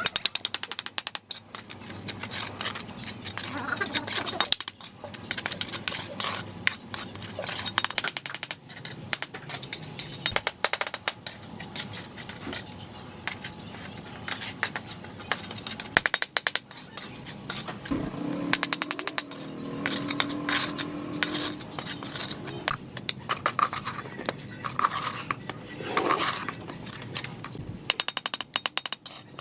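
Steel mason's trowel scraping and spreading wet cement mortar on red clay bricks, with bricks being set down and tapped into the mortar: an uneven run of scrapes, knocks and clinks.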